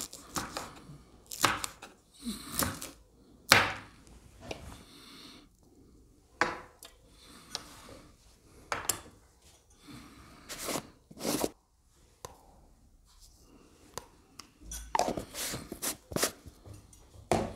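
Kitchen knife chopping on a wooden cutting board in separate, irregular strokes with pauses between them, and a quick run of clicks and knocks near the end.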